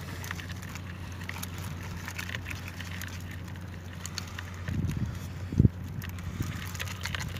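A steady low hum with faint scattered ticks, a short low sound near the middle and one sharp knock a little after it.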